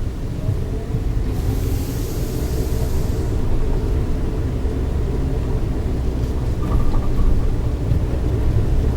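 Suzuki Jimny JB64 being driven on a gravel forest road: a steady low rumble of its small three-cylinder turbo engine and tyres on the road surface, with a brief rise of hiss a second or so in.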